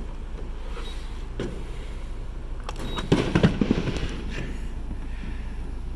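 Handling noise of a gas pump nozzle: a few light knocks, then a burst of clunks and clatter about three seconds in as the metal spout is worked into the opening of a plastic gas can. A steady low hum runs underneath.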